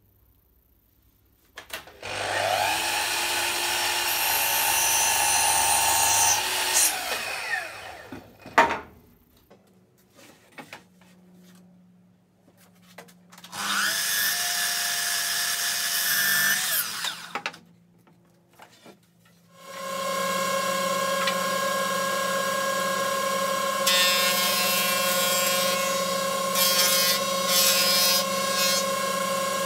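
Festool sliding mitre saw spinning up and cutting through softwood twice, each cut ending with the blade winding down. Then a planer runs steadily with a level hum, and a board is fed across its cutter block for the last few seconds.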